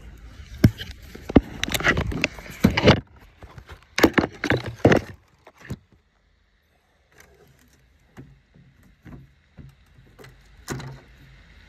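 Handling noise: bursts of rustling and sharp knocks as the camera is moved and set down on the wooden dock, then scattered lighter knocks and one louder knock near the end as a wooden landing net is brought out to land a hooked fish.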